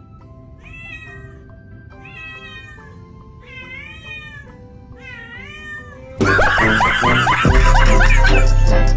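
A cat meowing four times, long meows that rise and fall in pitch. Loud music starts suddenly about six seconds in.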